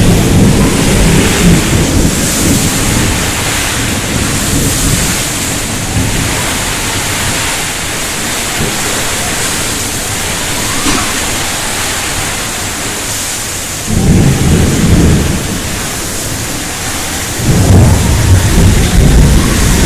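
Rain falling steadily with rolls of thunder: a rumble at the start, another about fourteen seconds in, and a third near the end.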